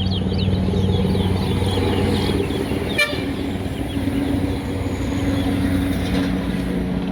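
A towa towa (seed finch) singing, a quick run of repeated short falling chirps over the first couple of seconds. Under it a steady low engine-like hum runs throughout, and a sharp click comes about three seconds in.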